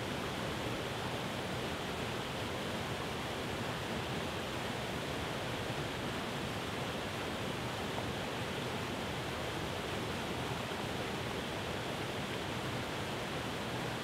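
Waterfall pouring over rock ledges: a steady, even rush of white water with no breaks.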